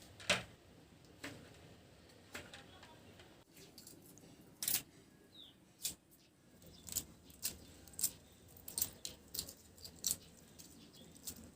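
Hard-boiled eggs being peeled by hand: irregular sharp clicks and crackles of eggshell cracking and breaking away, sparse at first and coming more often in the second half.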